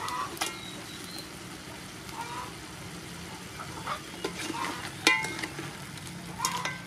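A wooden spoon stirring whole river prawns in a steaming coconut-milk curry in a metal pot, with scattered clacks and knocks of spoon and shells against the pot, the loudest about five seconds in, over a steady sizzle.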